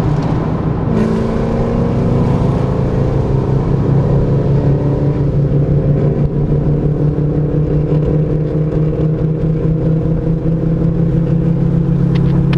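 Ford Mustang exhaust, loud and droning steadily at highway speed, heard from the open convertible.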